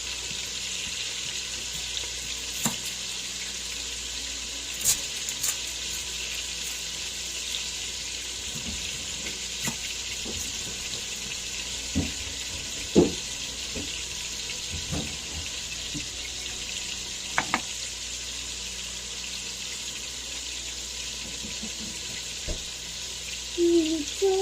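Beef chunks sizzling in a hot pot as they brown, a steady high hiss, with a few light knocks and clicks of a utensil against the pot.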